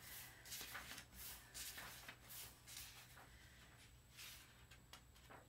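Faint paper rustling: a paperback book being opened and its pages turned, in several short soft brushes.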